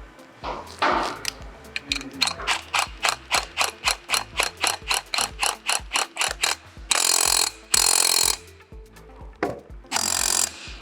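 Socket ratchet clicking in an even run, about five clicks a second, as nylon lock nuts are tightened onto the sprocket bolts, followed by three short rasping bursts of faster ratcheting.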